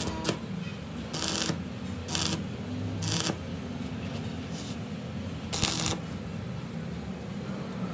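Stick (electrode) welder tack-welding the seam of a rolled steel rim band: the arc strikes in about seven short bursts, each well under half a second and unevenly spaced, over a steady low hum.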